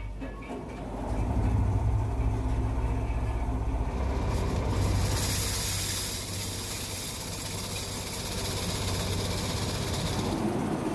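Spring-mounted vibratory polishing tub starting up about a second in and running with a steady low hum as it churns stainless steel spoons in a soapy slurry. From about five seconds in a hiss of splashing slurry rides over the hum as a crate of spoons is tipped in, stopping shortly before the end.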